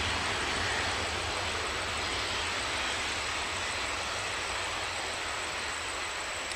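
Jet airliner engine noise: a steady rush with a faint high whistle, slowly fading.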